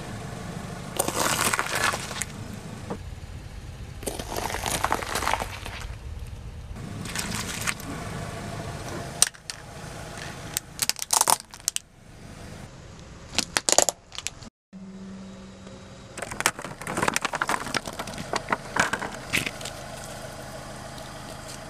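A car tyre slowly rolls over and crushes objects one after another: bell peppers squashing and bursting, then a plastic toy figure cracking. Several separate bursts of crunching and crackling sound over the car's steady low engine hum.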